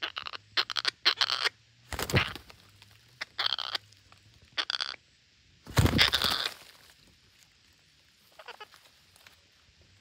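Red-breasted parakeets giving a series of short, harsh squawks, with a burst of wing flapping about six seconds in and a fainter run of calls near the end.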